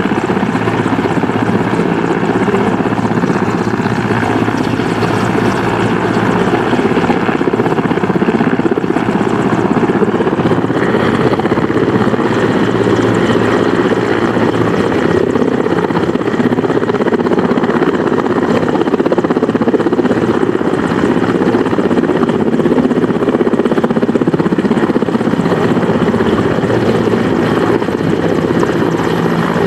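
Mil Mi-171Sh military helicopter running steadily at power, the sound of its twin turboshaft engines and five-blade main rotor, as it lifts off the ground into a low hover.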